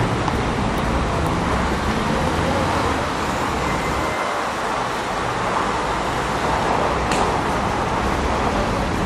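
Steady traffic noise from a busy multi-lane city street, the mixed sound of many car and van engines with no single vehicle standing out. A brief high click about seven seconds in.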